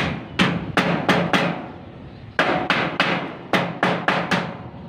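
Claw hammer striking a light steel stud frame: a quick run of about five blows, a pause of about a second, then about eight more. Each blow rings briefly on the metal.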